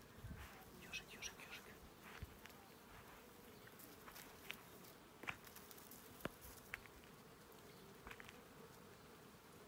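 Near silence: room tone with a faint steady hum and a few light clicks and taps scattered through.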